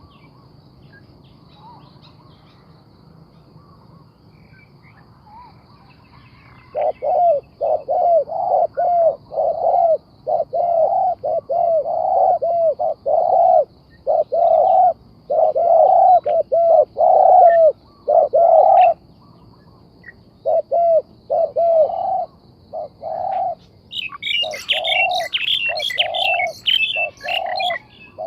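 Spotted dove cooing in a long run of quick, repeated phrases, starting about seven seconds in. Higher-pitched bird chirps join in near the end.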